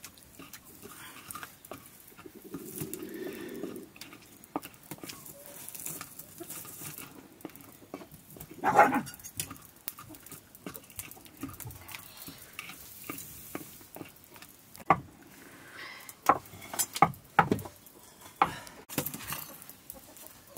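Hafted stone pestle pounding and grinding a wet tomato-and-chili sauce in a stone mortar: irregular knocks and scrapes of stone on stone through the mash, the loudest about nine seconds in.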